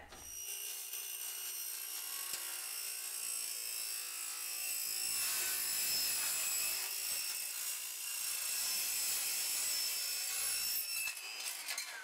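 Ryobi circular saw with a Diablo metal-cutting blade cutting through a thin sheet-metal pan: a steady high-pitched whine with a grinding hiss that winds down near the end as the cut finishes.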